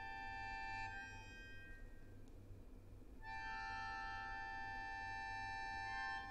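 Solo accordion holding quiet sustained chords of several high notes: the first chord fades out about a second in, and after a pause of about two seconds a second held chord comes in and stops near the end. A faint steady low hum runs beneath.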